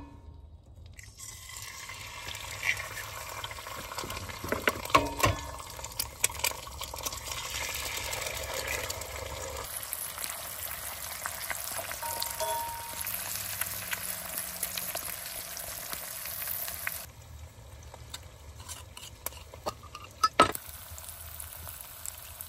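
Eggs frying in butter in a cast iron skillet, sizzling steadily, with a few sharp knocks and clicks a few seconds in and a single loud knock near the end.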